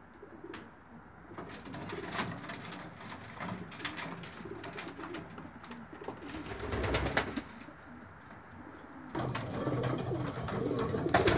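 Racing pigeons cooing, several birds at once, with scattered light clicks and knocks. The cooing gets louder about nine seconds in.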